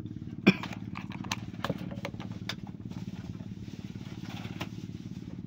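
A small engine running steadily in the background, with several sharp clicks from a plastic dropper bottle being handled and squeezed, the loudest about half a second in.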